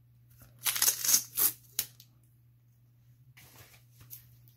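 Crackling and rustling of a stack of plastic trading-card holders bound in green tape being handled and unwrapped: about five short, sharp crackles in quick succession in the first two seconds, then a few faint rustles near the end.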